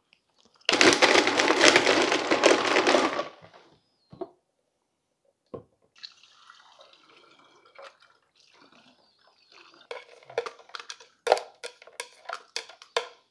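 Countertop blender run for about two and a half seconds, blending candy into kombucha. Then the liquid is poured from the blender jar through a funnel into a glass bottle, a faint trickle, followed by a quick run of knocks and taps as the jar is tipped and tapped to empty out the candy sludge.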